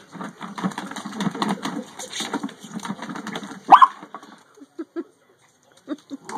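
Brittany puppy snuffling and rooting about for a bug, with one short rising yip a little under four seconds in, the loudest sound; after it only a few faint scuffles.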